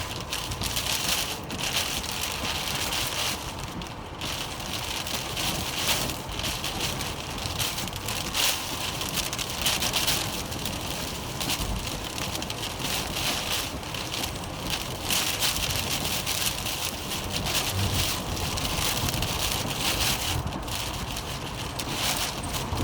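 Heavy rain from a severe thunderstorm, falling and striking surfaces as a dense, irregular crackle, with a steady low rumble underneath.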